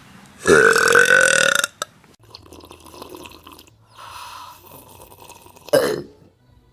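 A person burping: one loud, pitched burp lasting about a second, starting about half a second in, and a shorter burp near the end.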